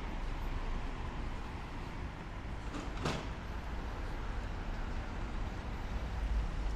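City street ambience: a steady wash of traffic noise with a low rumble, and one brief sharp sound about three seconds in.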